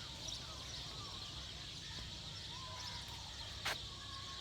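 Outdoor ambience: a steady high hiss over a low rumble, with faint thin calls that rise and fall, and a single sharp click about three and a half seconds in.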